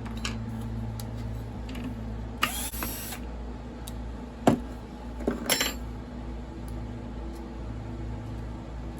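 Chainsaw parts and hand tools being handled during disassembly: a scraping rattle, a sharp click about halfway through and a short rattle soon after, over a steady low hum.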